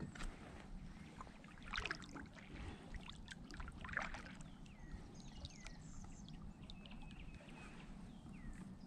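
Faint water sloshing and splashing against a small boat's hull, with a few short splashes about two and four seconds in. Short falling bird chirps sound in the background near the end.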